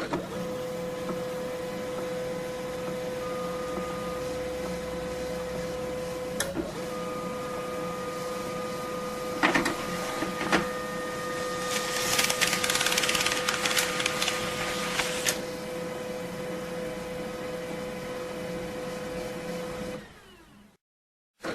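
Printer running: a steady mechanical hum, broken by a few sharp clicks and then a louder rushing whirr for about three seconds in the middle. It fades out near the end.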